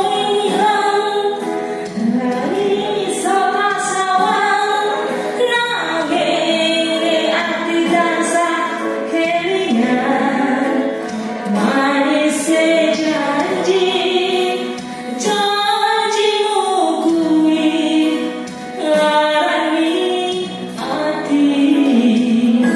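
A woman singing a melody with long held notes into a handheld microphone over a karaoke backing track.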